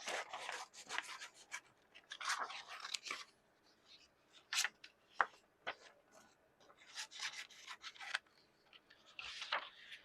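Scissors cutting paper, in irregular runs of short crisp snips and rustles with pauses between them, as a printed paper template is cut out.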